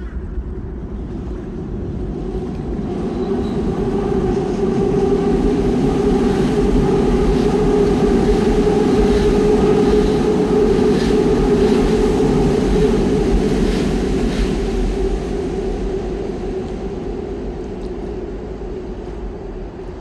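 A train passing, its rumble building slowly to a peak about halfway through and then fading away.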